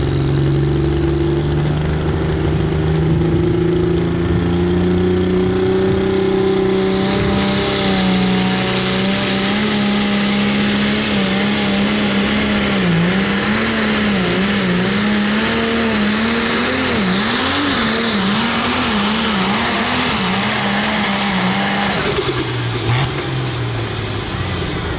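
Ford 8210 light-limited super stock pulling tractor's diesel engine at full power, pulling the sled. Its note climbs a little at first, then wavers up and down. About 22 seconds in the power is cut: the engine drops to a low, quieter note and a high whine falls away.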